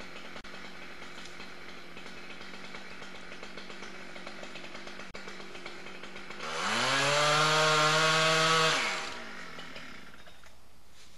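Chainsaw idling, then opened up to full throttle about six seconds in. It holds high for about two seconds, then drops back down to idle.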